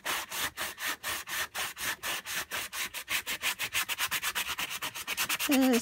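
Hardware-store sanding block scrubbed back and forth over a painted fabric-and-paper altered book page: a fast, even rasping of about seven strokes a second that quickens toward the end. The block is barely cutting through the dried paint. A brief voiced hum comes right at the end.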